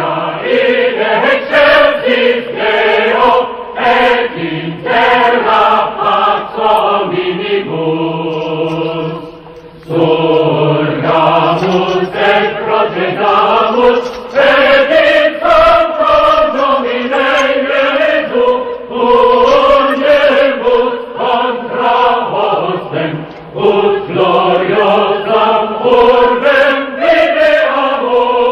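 A choir chanting a slow sacred hymn, many voices holding drawn-out sung lines, with a brief softer passage about eight seconds in.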